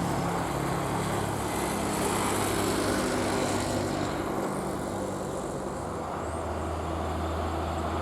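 Tour bus's diesel engine running as the bus comes up the incline, over steady road noise; a low engine drone grows stronger about six seconds in.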